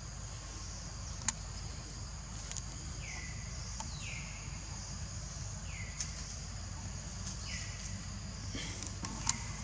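Insects droning steadily in a high-pitched outdoor chorus. Over it, a short falling call repeats about five times, each dropping and then levelling off. There are three sharp clicks, the loudest near the end.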